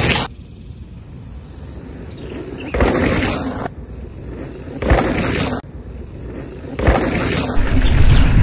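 Full-suspension mountain bike rolling over a rough dirt trail: tyre and frame noise comes in surges every couple of seconds. A louder, steadier low rumble sets in near the end.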